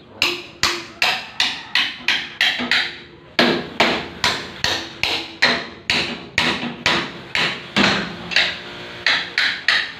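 Hammer blows against an old steel window frame, about two and a half strikes a second with a brief pause about three seconds in; each blow rings briefly.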